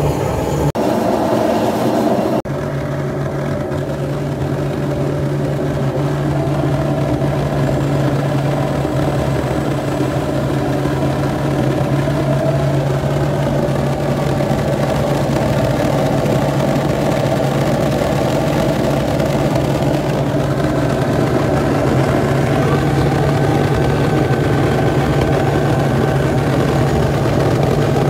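Propane venturi burner running: a steady rushing flame noise over a low, even rumble, with an abrupt change in the sound about two and a half seconds in.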